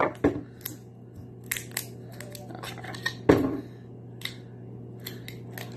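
Small clicks and crinkles as a hot sauce bottle's cap and peeled seal are handled, with one louder knock about three seconds in as the bottle is set down on the table. A low steady hum runs underneath.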